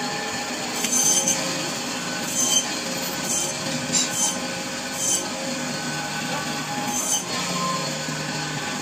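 Electric band saw running steadily, its blade cutting through a skipjack tuna's body and backbone with a steady whine, broken by several short, harsher bursts as the blade bites through.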